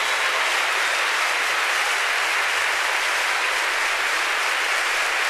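Large concert crowd applauding at the end of a live song: a steady, dense wash of clapping.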